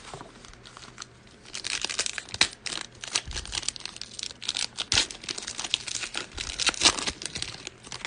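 Foil wrapper of an NBA Hoops Premium Stock trading-card pack being torn open and crinkled by hand: a dense run of sharp crackling that starts about a second and a half in and lasts until just before the end.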